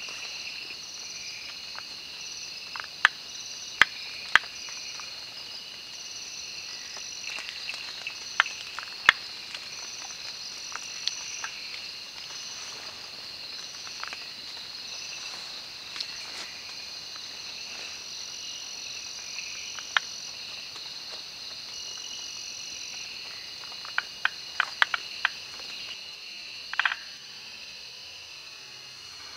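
Night chorus of crickets and other insects, a steady high-pitched trill, with sharp clicks scattered through it: three a few seconds in, a pair about eight seconds in, and a quick run of about six near the end.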